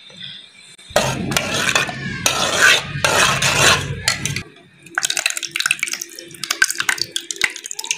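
A rough rushing noise for about three and a half seconds, then a spoon stirring in a bowl, clinking against the sides in quick small clicks.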